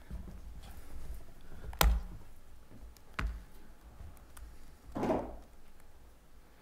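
Knocks and thumps of a laptop being handled on a wooden lectern, picked up through the lectern microphone: a sharp knock about two seconds in is the loudest, another comes about a second later, and a short rustle follows near five seconds.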